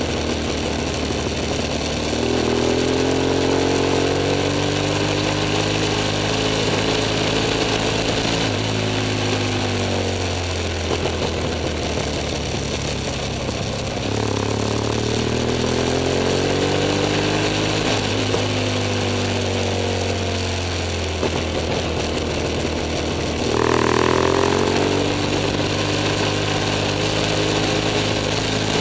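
BMW F 800 S parallel-twin engine under way, its pitch climbing three times as the motorcycle accelerates and dropping back each time the throttle is eased, over a steady rush of wind noise.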